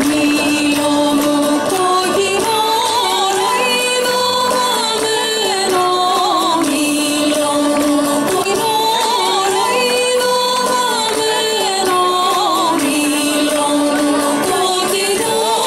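A song with singing over an accompaniment, played steadily through a loudspeaker, the melody moving in repeated phrases.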